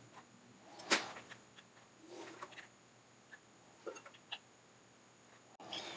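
Quiet handling sounds from a hot glue gun and a glass wine bottle: one sharp click about a second in, then a few soft ticks and taps as the glue gun's trigger is squeezed and the bottle shifts.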